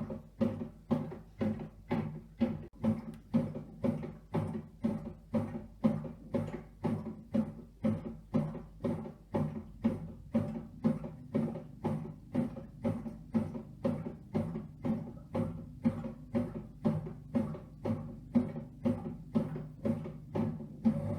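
Redmond RBM-1908 bread maker's kneading motor running in short pulses about twice a second, each starting with a knock and a brief hum. Right at the end it settles into a steady hum.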